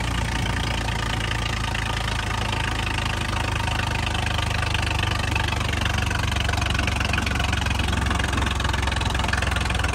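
Swaraj 855 tractor's three-cylinder diesel engine running steadily while the tractor drives at road speed, heard from the driver's seat with a constant rush of road and wind noise over it.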